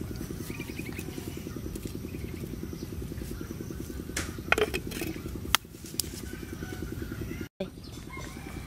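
Steady low drone of a small engine running, with a fast, even pulse. A few sharp clicks come about halfway through.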